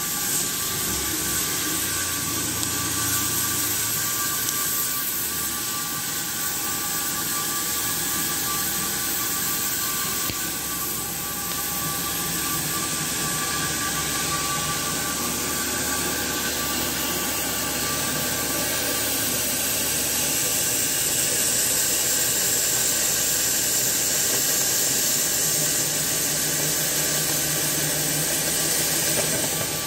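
CNC oxy-fuel cutting torch burning through thick steel plate: a steady hiss of the gas jet, with a faint steady whine, slightly louder in the second half.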